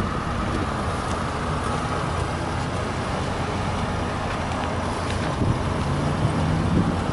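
Suzuki Carry kei truck's small three-cylinder engine idling steadily, a low even hum.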